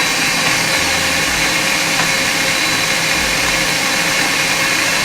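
Electric blender running steadily, blending whole chillies into vegetable juice.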